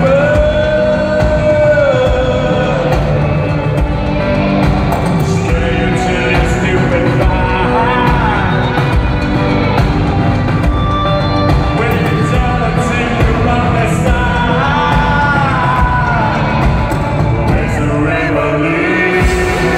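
A live synth-rock band playing loud, with a male lead singer holding long sung lines over synthesizers, electric guitar and drums, as heard from within an arena crowd.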